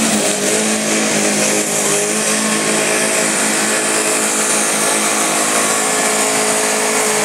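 Garden-class pulling tractor's engine running flat out at steady high revs while it drags the weight-transfer sled.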